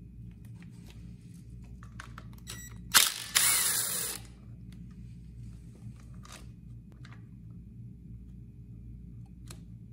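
Cordless driver spinning a small bolt out of a generator's alternator end. A short loud burst comes about three seconds in, then a run of under a second. Light clicks of parts and tools being handled fall before and after it.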